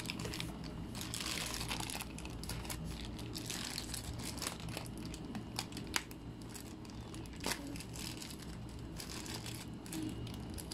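Thin plastic toy packet crinkling as it is handled and pulled at by a child trying to open it, with scattered sharp crackles, the sharpest about six seconds in.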